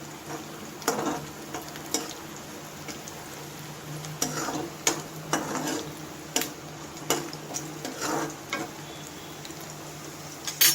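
Sliced onions frying in hot oil in a pan with a steady sizzle. A spatula scrapes and stirs them at irregular intervals, about ten strokes, as they are browned until crisp.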